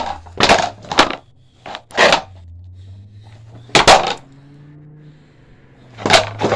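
Plastic snowboard knocking and scraping on asphalt as the rider shifts and hops in its strap bindings: a handful of sharp, irregular knocks. A faint low hum runs through the quieter stretch in the middle.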